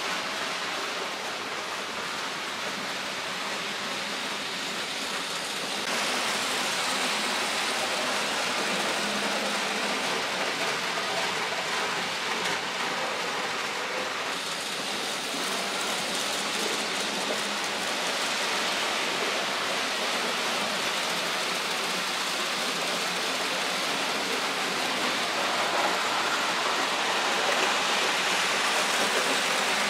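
Märklin H0 model trains running on metal M-track: a steady rushing rumble of wheels and motors on the track. The sound steps up about six seconds in and grows a little louder near the end.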